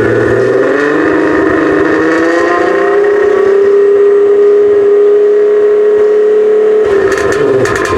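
Car engine revved, climbing in pitch over about three seconds and then held steady at high revs for about four seconds before being let off near the end.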